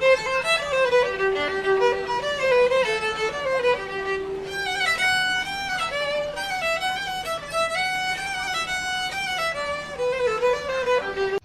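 Music: a lively fiddle melody, one bowed line stepping quickly from note to note, which cuts off abruptly at the end.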